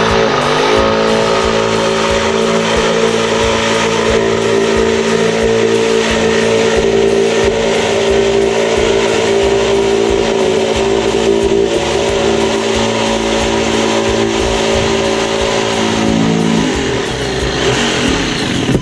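Electric power tool cutting. Its motor spins up about half a second in, runs steadily at one pitch with a loud hiss, and winds down near the end.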